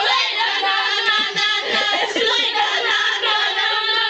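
A group of girls singing together, several voices at once at a steady, fairly loud level.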